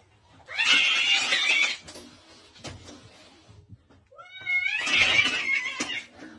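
An angry cat giving two harsh, noisy outbursts, one about half a second in and another about five seconds in. The second outburst opens with a short wavering yowl.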